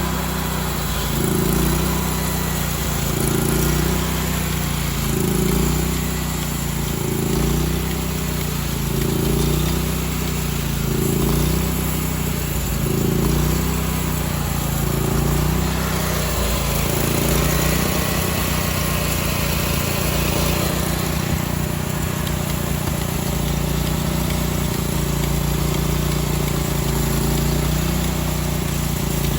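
Engine of a homemade wide-cut sawmill running, its pitch and level swelling and dipping about every two seconds for the first half, then holding steady.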